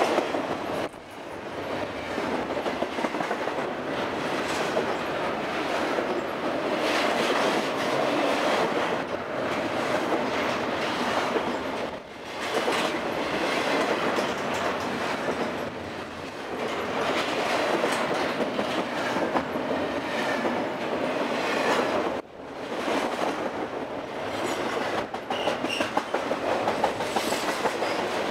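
Double-stack container well cars of a freight train rolling past close by: the steady rush and rattle of steel wheels on the rails, dipping briefly in loudness three times.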